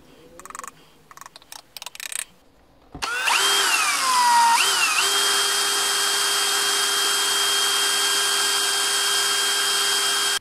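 A 21 V cordless drill with a mixing bit stirring epoxy resin in a plastic cup, starting about three seconds in; its motor whine dips and rises as the trigger is worked, then holds steady. Before it, a wooden stick taps and scrapes in a small plastic pot of blue pigment.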